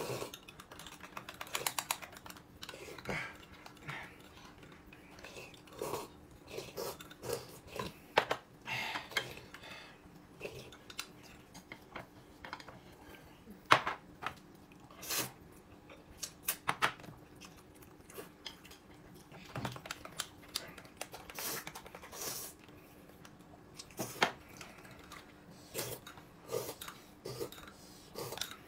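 People eating: irregular clicks and crunches of biting and chewing, with occasional clinks of utensils against dishes, over a faint steady hum.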